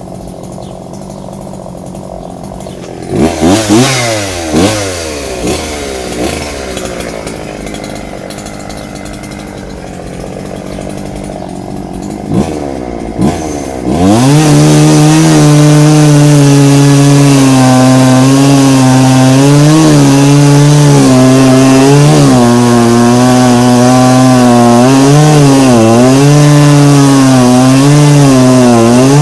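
Two-stroke chainsaw idling, revved briefly a few times, then held at full throttle from about halfway through while cutting wood, its pitch dipping and recovering as the chain bites under load.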